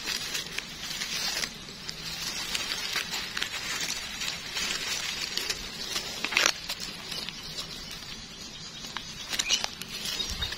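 Dry grass and fallen leaves rustling and crackling as gloved hands cut a cluster of mushrooms from the ground with a knife and pull it free, with small snaps throughout and a louder crackle about six seconds in.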